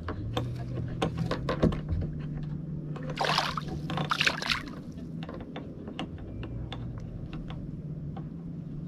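Water splashing in two short bursts a few seconds in, amid small clicks and knocks from fishing line and gear being handled on a kayak, over a steady low hum.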